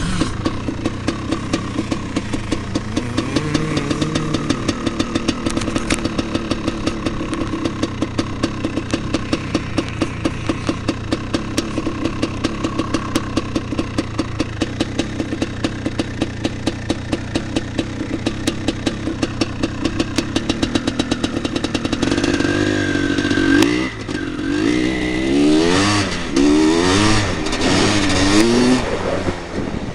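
1986 Husqvarna 400 two-stroke motocross engine idling with a steady, even firing beat, then revved up about three-quarters of the way through and ridden off, its pitch rising and falling through the gears.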